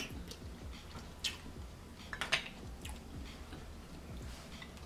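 Mouth sounds of eating a mussel: it is sucked from its shell, then chewed quietly with a few short, wet smacks, the loudest about two seconds in.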